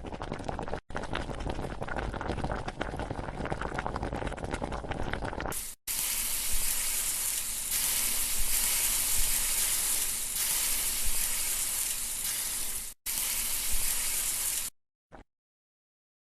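Food sizzling and frying in a hot pan: a crackling hiss in several short clips cut abruptly one after another. The loudest, brightest stretch is in the middle, and the sound stops dead a couple of seconds before the end.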